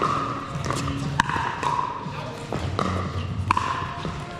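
Pickleball rally: several sharp pops of paddles striking the plastic ball, the loudest about a second in and again about three and a half seconds in.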